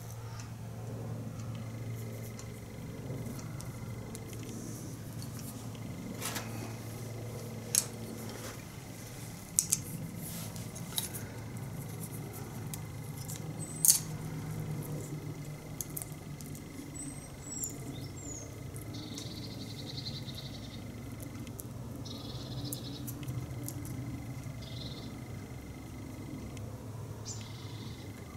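Metal hedge trimmer blade and gearbox parts handled by hand, giving a few sharp metallic clicks and clinks over a steady low hum, most of them in the first half.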